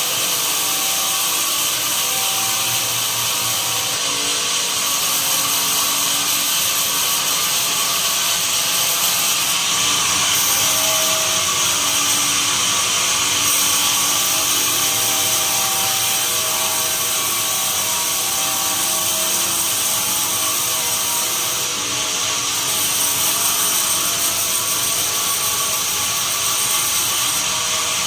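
Sawmill saw running and cutting pine timber: a steady, loud mechanical noise with a few brief high, hissing surges.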